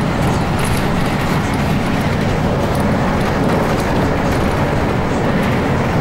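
Steady engine and road noise heard from inside a moving bus's cabin.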